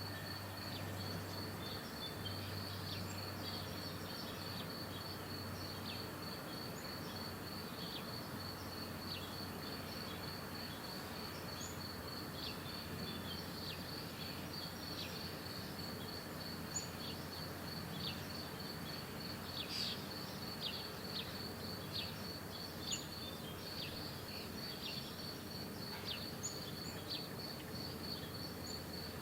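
An insect trilling steadily in a high, rapid, even pulse, with many short bird chirps scattered over it and a low steady background hum.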